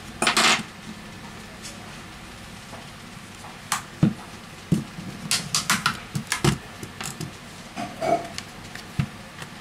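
Plastic opening pick prying along the seam of a smartphone's plastic back cover. A brief scrape comes near the start, then scattered sharp clicks and snaps as the cover's clips come free.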